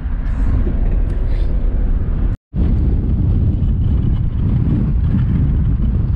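Car driving along the road: a loud, steady low rumble of engine and road noise, cut off for a moment about two and a half seconds in.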